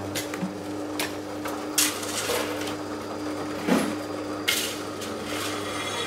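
Bench drill press running with a steady motor hum as its twist bit cuts into a steel plate, with a few sharp metallic clicks and short scraping hisses scattered through.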